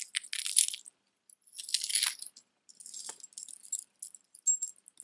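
Bronze-tone metal chain necklace with metal flower pendants clinking and jangling as it is bunched up in the hands and set aside. The jingling comes in three bursts over the first four seconds, followed by a few light clicks.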